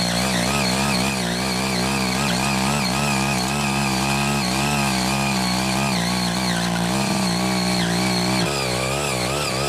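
Small engine of a hand-guided motorised plough running steadily while working the soil, its pitch wavering, with a change in tone about eight seconds in.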